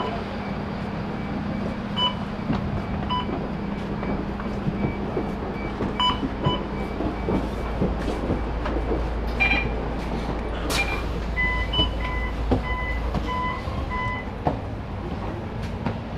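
Interior of a stationary double-decker bus with its engine idling in a steady low hum. Short electronic beeps sound several times, with a sharp click about eleven seconds in and a run of repeated beeps near the end.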